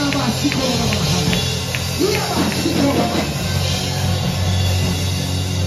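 Live church band playing a slow gospel worship song between sung lines: sustained low notes with light cymbal ticks about twice a second early on, and faint voices.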